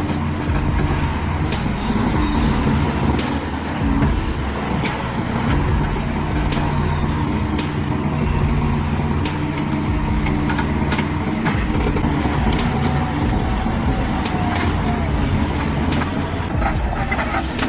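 Heavy diesel machinery running steadily, with a thin high squeal that rises and falls above the engine sound and scattered clicks.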